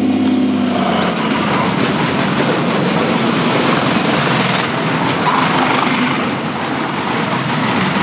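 A train horn sounding, ending about a second in, then the loud, steady rumbling rush of a freight train passing close by.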